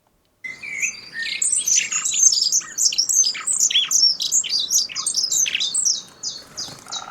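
Field recording of songbirds singing: a dense run of fast, high chirps and whistled notes. It starts about half a second in and cuts off at the end.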